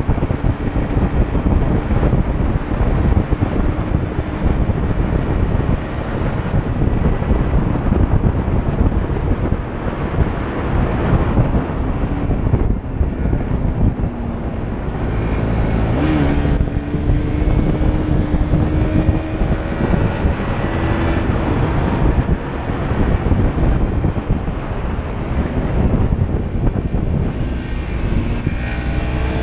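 Motorcycle riding along at speed, the engine's steady drone half-buried in heavy wind rumble on the microphone; near the end the engine note rises as it accelerates.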